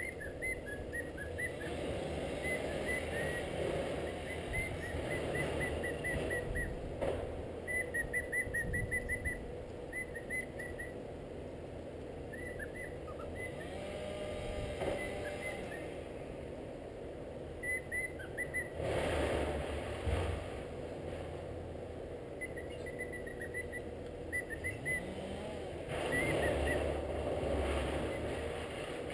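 Cockatiel chirping in quick runs of short, high notes, over a steady low rumble that swells twice.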